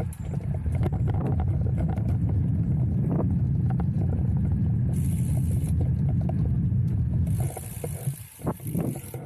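Wind and road rumble heard while cycling, a loud low rumble that drops away about seven and a half seconds in. There are two spells of hiss, a short one about five seconds in and a longer one near the end.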